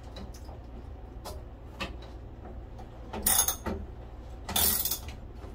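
Ratchet wrench clicking in two short runs, about three seconds in and again about a second later, as a terminal nut is tightened; a few faint taps come before.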